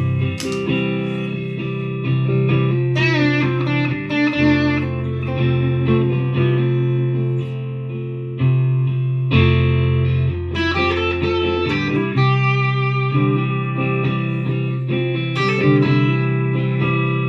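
Harley Benton TE-62CC Telecaster-style electric guitar playing a sound sample: single-note melodic lines with string bends over sustained low notes.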